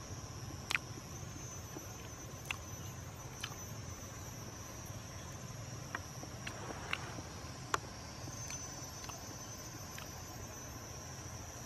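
Insects droning in a steady, high, even tone, with a few short sharp clicks scattered through it.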